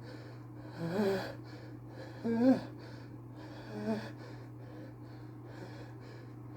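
Whiny pre-sneeze hitching: three short gasping intakes of breath that rise in pitch, about a second and a half apart, the middle one loudest, as a sneeze builds but does not come out.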